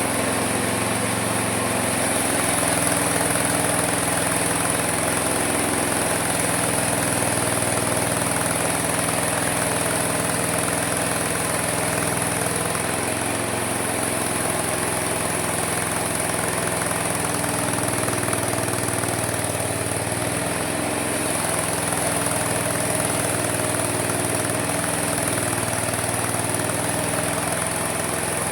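Homemade mini sawmill running steadily through the whole stretch. Its low machine note shifts slightly in pitch every several seconds, and a constant high whine sits over it.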